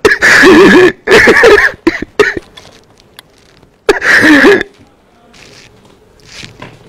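A man crying loudly in wailing sobs: two long sobbing cries at the start, a short one about two seconds in, and another about four seconds in.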